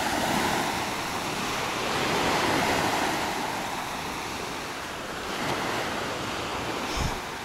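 Small waves washing onto a sandy beach, a steady surf sound that swells and eases.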